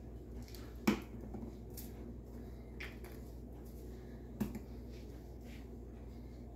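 Seasoning shaker bottles being handled on a wooden table: two sharp clicks, about a second in and again about four and a half seconds in, with a few fainter ticks between, over a steady low hum.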